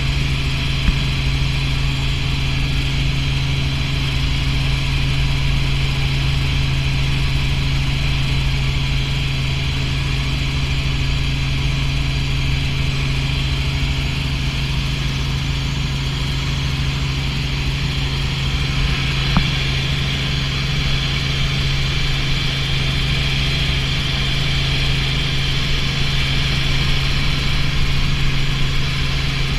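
Light helicopter in cruise flight, heard from inside the cabin: a steady drone of engine and rotor with a strong constant low hum over a rush of air. There are two brief clicks, one about a second in and one about 19 seconds in.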